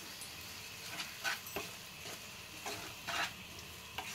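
Onions and spice powders frying in oil in a pan: a steady sizzle with the scrape of a wooden spatula stirring them, a few separate strokes.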